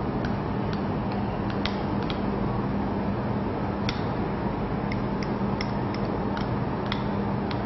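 Steady low hum and hiss with a scattered handful of faint, light ticks at irregular moments.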